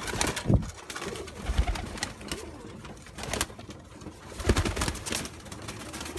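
Domestic pigeons cooing in a loft, broken by several short knocks and rustles, the loudest about half a second in and again near four and a half seconds.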